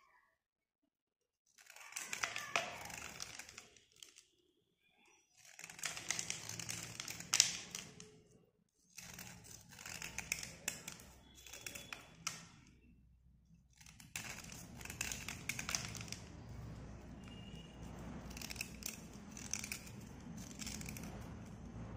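Metal blade scraping a white slate pencil bar, a dry rasping scrape as flakes come off. After a silent start it comes in stretches of strokes, then runs on without a break in the second half.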